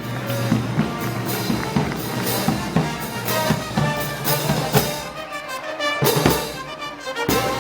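Live brass band with drums playing festival music: sustained brass notes over a regular drum beat.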